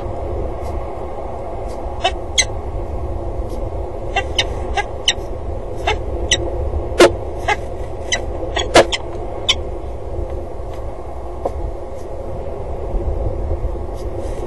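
Steady low rumble of wind buffeting an outdoor camera microphone, overlaid with irregular sharp clicks and ticks, the loudest two about halfway through.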